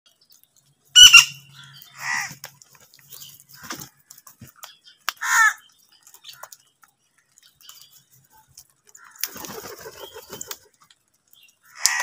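A flock of house crows feeding, giving single harsh caws every few seconds, the loudest about a second in. A stretch of rustling and tapping comes from about nine to ten and a half seconds in.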